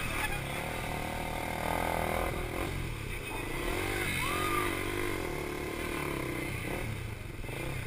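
KTM Duke 390's single-cylinder engine revving up and down as the bike is ridden around a tight track, its pitch rising and falling every second or so, over steady wind noise.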